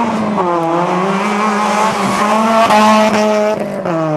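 A rally car's engine revving hard as it drives through a corner. The pitch rises, then drops abruptly several times with the gear changes.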